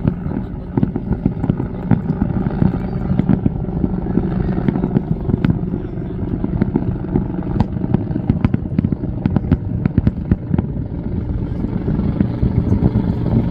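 Fireworks display: a rapid stream of bangs and crackles over a continuous low rumble, densest about two-thirds of the way through.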